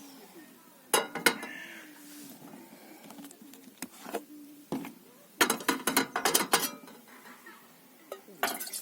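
Cookware and cutlery clinking and knocking: a couple of clinks about a second in, a quick run of them in the middle, and more near the end.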